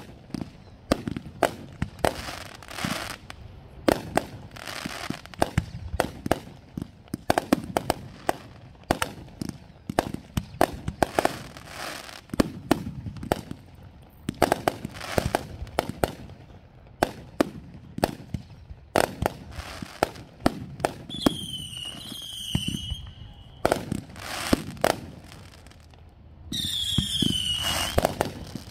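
Fireworks display: a continuous run of aerial shell launches and bursts, sharp bangs several times a second. Two shrill whistles rise over the bangs in the last third, one lasting about two seconds and another just before the end.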